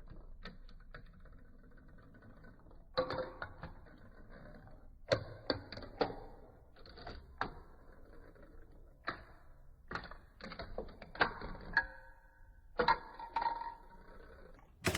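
Glass marbles clicking and clattering as they drop and roll through hard plastic marble-run track pieces, in bursts of rapid ticks and knocks from about three seconds in, with a sharp click at the very end.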